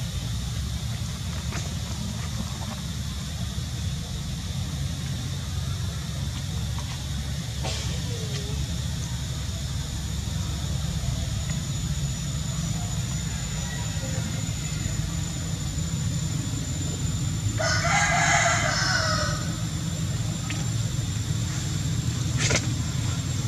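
Steady low outdoor rumble, with one loud pitched animal call lasting about two seconds near the end and a thin high steady tone through the second half.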